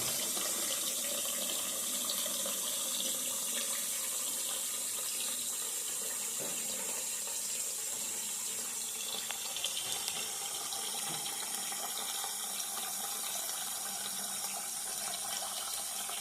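Newly installed sink faucet running steadily into the basin with the drain stopper closed, filling the sink.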